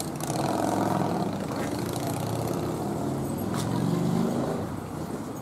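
A motor vehicle's engine running and passing by, swelling up shortly after the start and fading out near the end.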